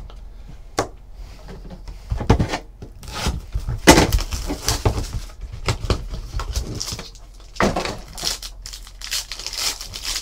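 A trading card pack being handled and torn open: irregular crinkling and tearing of the wrapper with a few knocks, one of the loudest about four seconds in.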